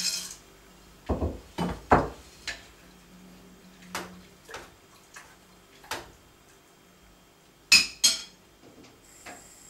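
Kitchen cookware clattering: a pot lid and utensils clink and knock against pots in about ten separate strikes, the loudest pair near the end.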